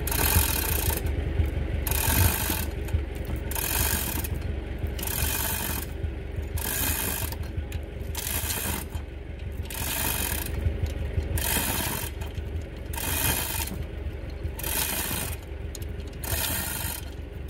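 Ferguson TO35 tractor's engine running low and steady under a regular mechanical rattling that repeats about every three-quarters of a second, from the lifting boom and chains carrying a rusty sickle-bar mower cutter bar.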